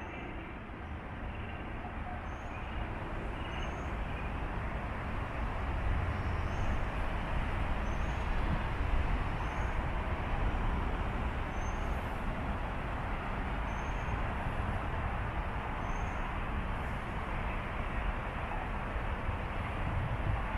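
Steady outdoor road-traffic noise with a low rumble, swelling slightly as a car passes by the middle. Faint short high chirps recur every second or two.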